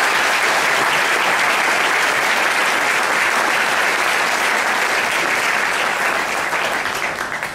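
A large audience applauding steadily, dying away near the end.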